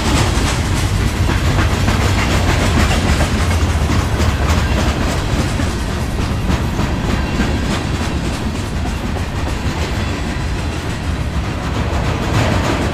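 Freight train's loaded centerbeam lumber flatcars rolling past: a steady rumble of steel wheels on rail, with repeated clicks as the wheels cross the rail joints.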